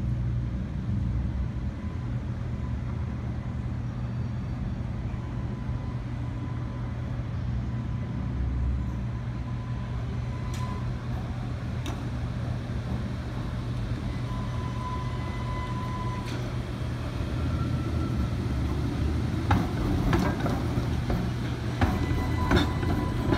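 New Orleans RTA streetcar approaching and rolling slowly past over a steady low rumble. Its wheels give a few sharp clicks over the track joints and switches about halfway through, and a denser run of louder clicks near the end as the car passes close.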